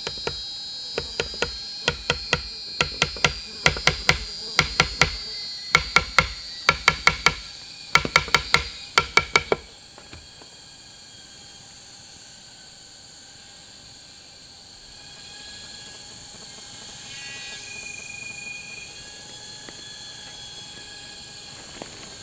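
A run of sharp knocks in quick clusters of two to four, lasting about ten seconds and then stopping, over a steady high-pitched hiss that carries on throughout.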